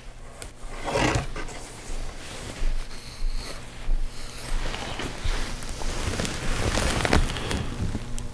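Close handling noise from a hunting knife and its leather sheath being handled: irregular rubbing and rustling with scattered light clicks and knocks.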